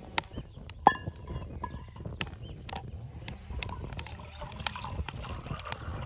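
Wood fire crackling with scattered sharp pops in a split Swedish log. About a second in a stainless steel camping mug is set down on the log with a short ringing clink, and in the second half water is poured into the mug.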